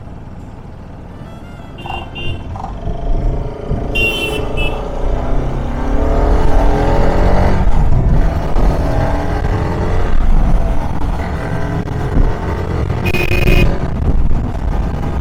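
Motorcycle on the move: wind and road rush with the engine note rising and falling under the throttle. Short horn beeps sound about 2, 4 and 13 seconds in.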